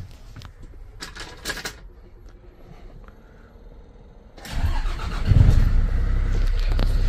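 Hyundai Mega 5-ton truck's diesel engine started from the cab: a few clicks, then it cranks about four and a half seconds in, catches and settles into a steady low idle.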